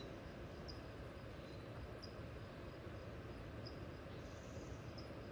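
Faint outdoor ambience: a steady low rumble of background noise with short high chirps repeating about every second and a half, and a longer high trill about four seconds in.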